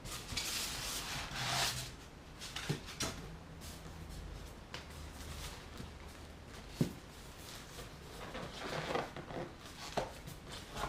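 Packaging being handled as parts are taken out of a box: bursts of rustling, with a few sharp knocks.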